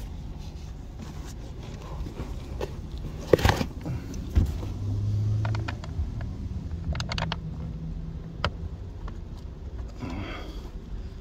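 Hard plastic knocks, clicks and scraping as a replacement blower motor is pushed up and fitted into its HVAC housing under the dash. One sharp knock about a third of the way in is the loudest, and there is a brief low hum around the middle.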